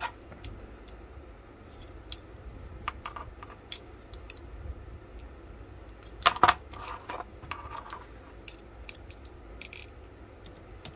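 Small metal clicks and clinks of locking pliers clamping the V-shaped mainspring on an antique percussion pistol's lock, the steel parts knocking as they are worked. The loudest sound is a pair of sharp clacks a little past halfway.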